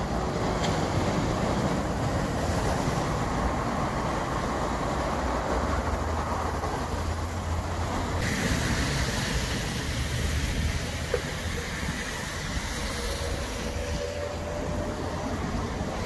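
Road traffic passing on a wet, flooded dual carriageway: a steady hiss of tyres on wet tarmac and water over a low engine rumble.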